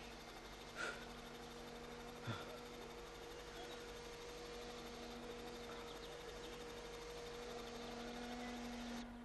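Quiet room tone carrying a steady low electrical hum, with two brief faint sounds, one about a second in and another a little after two seconds.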